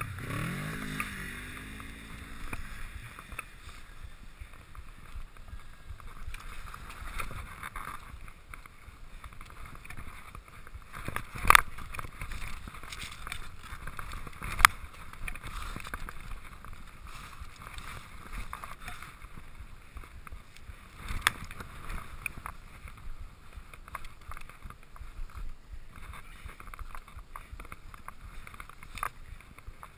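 Skis sliding over snow on a downhill run, a steady hissing scrape, broken by a few sharp knocks.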